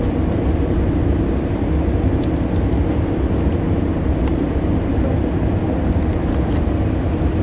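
Steady low mechanical hum and rumble, with a few faint clicks in the middle.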